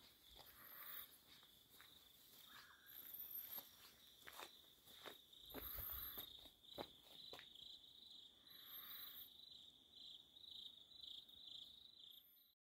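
Faint insect chorus, a steady high trill that turns pulsing in the second half, with a higher buzzing call about every two and a half seconds. Footsteps on a dirt path give scattered soft crunches and thuds. Everything cuts off suddenly near the end.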